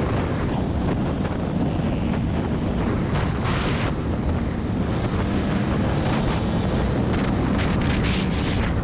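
Off-road rally vehicle driving, its engine running steadily under a constant rush of wind buffeting the action-camera microphone.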